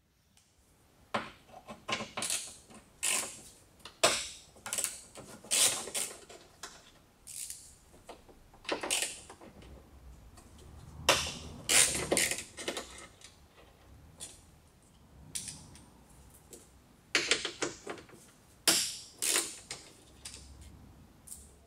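Hand work inside a car door with its trim panel off: irregular sharp clicks, knocks and short rattles as metal parts, plastic clips and tools are handled against the door's inner frame, with denser bursts of clicking about eleven and eighteen seconds in.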